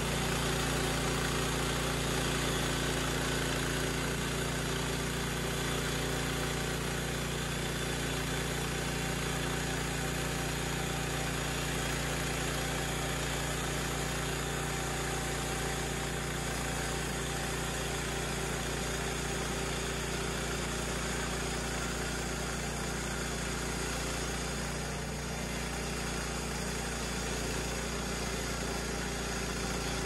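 Harbor Freight portable band sawmill's small gas engine running steadily while its band blade cuts lengthwise through a log.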